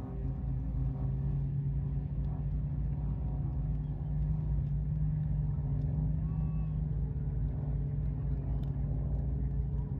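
Boat engine running steadily with a low, even hum over a rumble.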